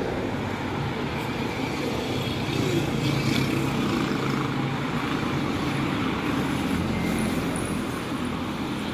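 Road traffic: motor vehicle engines running with a steady wash of road noise.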